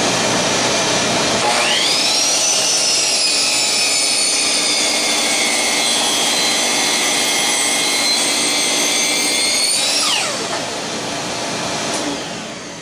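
Electric miter saw running at full speed as it shaves the edge of a 2x6 wood block square, a steady loud whine over noise. About ten seconds in the motor is switched off and the whine falls as the blade spins down.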